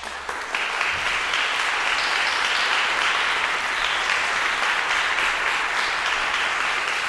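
Audience applauding: the clapping starts suddenly, fills out about half a second in, then holds steady.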